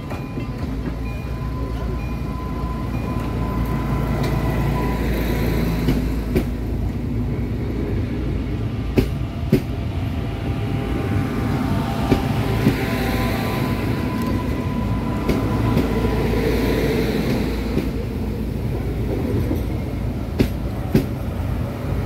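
Regional passenger multiple-unit train passing close by at low speed: a steady low running rumble with a faint whine, and a few sharp clicks as the wheels cross rail joints.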